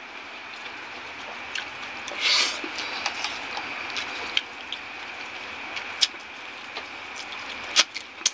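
A person eating noodles and shrimp with his hand: sharp mouth clicks and smacks from chewing, one every second or two, with a short hissing slurp or breath about two seconds in.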